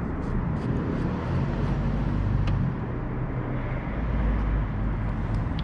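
Steady rumbling background noise, heaviest in the low end and swelling a little about four seconds in, with a few faint clicks.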